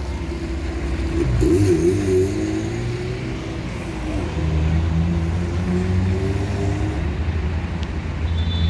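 Lada Niva 4x4's engine running as the car drives off slowly, a steady low engine hum whose pitch wavers a little.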